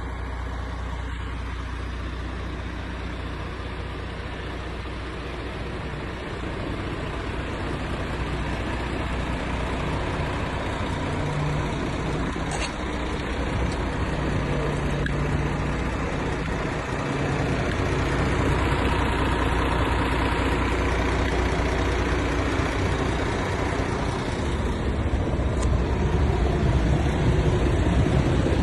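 MAN TGX 18.500 truck's 12.4-litre straight-six diesel running, its sound growing steadily louder.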